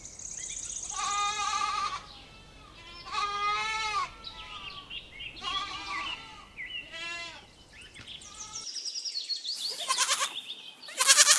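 Goat bleating: a series of drawn-out, wavering bleats, about four in the first eight seconds, then higher-pitched calls near the end.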